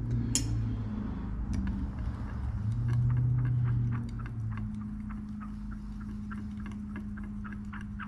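A stirring rod ticking against the sides of a glass measuring cup as liquid soft-plastic mix is stirred, several light ticks a second, over a low steady hum. A single sharp tap comes just at the start.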